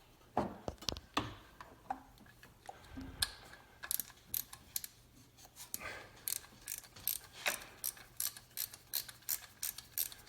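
Socket ratchet clicking in short, fairly regular strokes as a 13 mm alternator mounting bolt is backed out through a short extension. The clicks are scattered at first, then come about three a second from a few seconds in.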